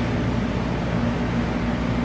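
Amada Aries 245 CNC turret punch press running with a steady mechanical hum and no punching strokes.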